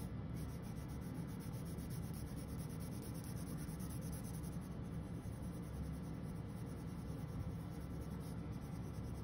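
A red crayon scribbling on a paper worksheet: continuous rapid back-and-forth colouring strokes, a soft scratchy rubbing.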